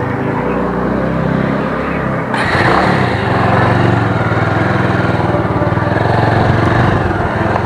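Motorcycle engine running while riding, with wind and road noise. About two seconds in the hiss and the engine pulsing both step up as it picks up speed.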